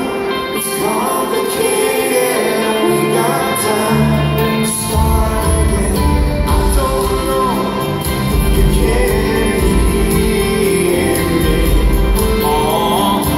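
Rock band playing live, heard from the audience: acoustic and electric guitars, bass, drums and keyboard, with singing.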